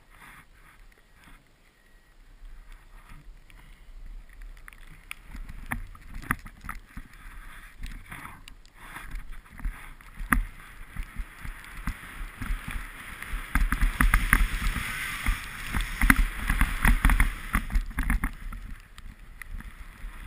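Wind buffeting a GoPro action camera's microphone over the hiss and scrape of snow under a rider sliding downhill. It starts quiet, grows louder from about two seconds in and is loudest in the second half, with scattered knocks and bumps.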